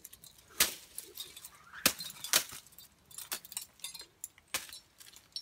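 Dry leaf litter crunching underfoot in short, scattered crackles, roughly one a second.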